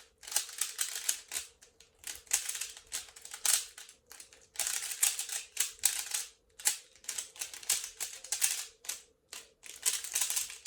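Cyclone Boys Feiwu 3x3 speedcube being turned fast in a timed solve: clusters of rapid plastic clicking turns broken by short pauses. A faint steady hum runs underneath.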